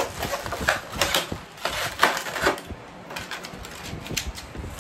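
Clear plastic blister packaging crinkling and clicking as hands pick action-figure parts out of it, in quick irregular crackles that thin out after about two and a half seconds.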